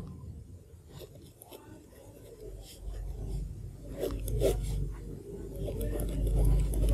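Handwriting: a few short, scratchy strokes of a pen on the writing surface, heaviest about four seconds in, over a low rumble.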